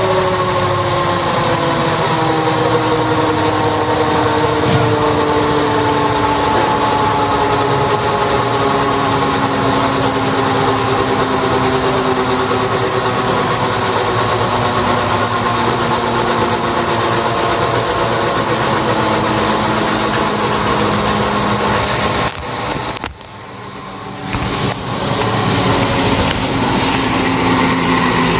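Kawasaki ZX-14R's 1441 cc inline-four and its rear wheel spinning on a Dynojet chassis dyno, the pitch falling slowly and steadily, as in a long coast-down after a pull. The sound drops out briefly near the end, then the engine note returns, lower and steadier.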